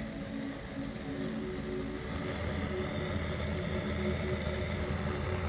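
Handheld gas torch burning steadily with a low, rushing roar, its flame jet blasting into a wood stove's firebox to light the kindling.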